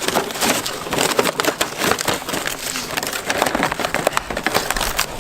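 Rapid, irregular crackling and snapping, like something being crushed or worked open by hand.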